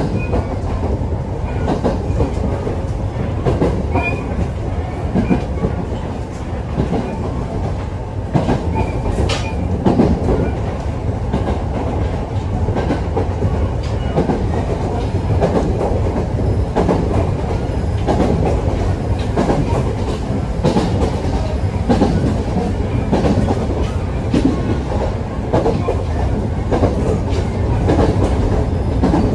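Electric train running at speed, heard from inside the passenger car. There is a steady low rumble, with the clickety-clack of the wheels over rail joints about once a second.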